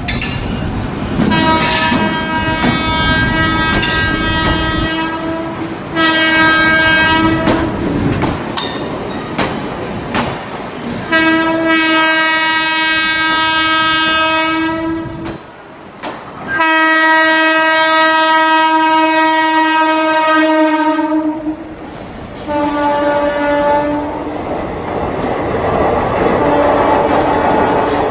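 Horn of a WAP-4 electric locomotive hauling an express train through a station at speed: five blasts, the middle two long and the loudest. Near the end the horn stops and the coaches roll past with a rushing rumble and wheel clatter.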